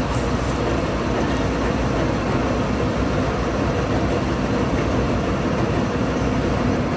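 Malkit combine harvester running steadily, its engine and machinery going while the unloading auger discharges grain into a tractor trolley.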